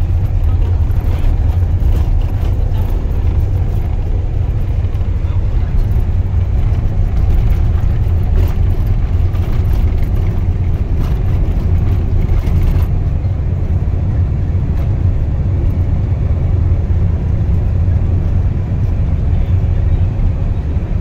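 Cabin noise inside a moving Nissan NV350 van: a steady low rumble of engine and tyres on the road.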